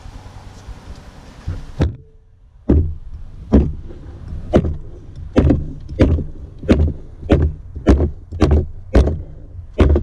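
A series of about a dozen hard mallet blows on a part inside a 4L60E transmission case. They start about two seconds in and come at roughly one to one and a half a second, a little faster toward the end. Each blow is a low thump with a sharp crack.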